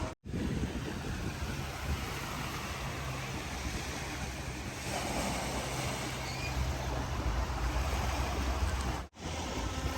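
Ocean surf washing steadily, with wind rumbling on the microphone. The sound drops out briefly twice, just after the start and about a second before the end.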